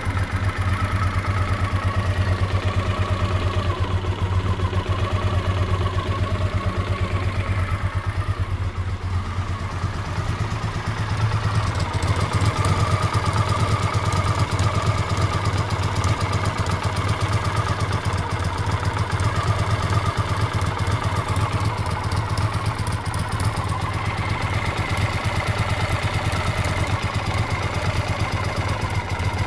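Honda CX500's liquid-cooled V-twin idling steadily, with a fast clicking from the left cylinder head that the owner suspects is a leaking exhaust gasket or, at worst, a worn cam chain.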